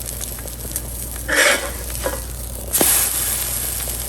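Custard-soaked brioche French toast sizzling in butter in a hot skillet, a steady frying hiss. Two short louder bursts come about a second and a half and three seconds in.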